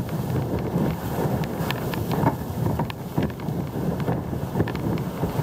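Rushing whitewater and spray as a sit-on-top kayak surfs a breaking ocean wave, with wind buffeting the microphone. Scattered sharp splashes and ticks run through the steady rush.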